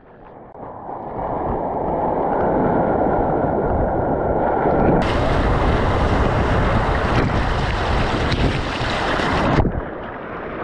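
Rushing, churning white water of a river rapid heard close up from a camera worn by a swimmer in the current, with splashing right at the microphone. The sound changes abruptly about halfway through and again near the end.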